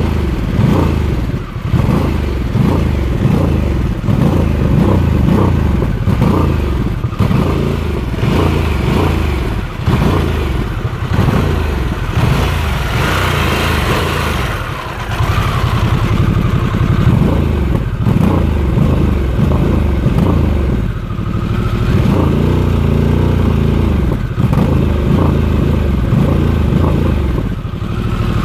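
Harley-Davidson Sportster S's Revolution Max 1250T V-twin running on its stock exhaust, revved in repeated uneven blips, then idling steadily for the last several seconds.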